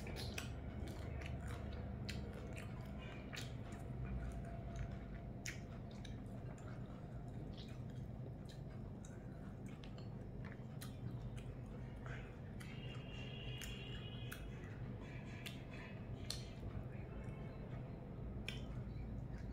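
A person chewing and eating, with many irregular small clicks and smacks, over a steady low hum.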